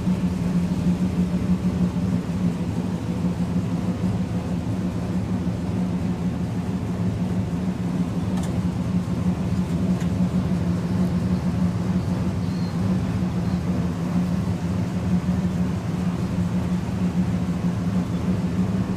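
Steady low mechanical hum of car wash machinery, even and unbroken throughout.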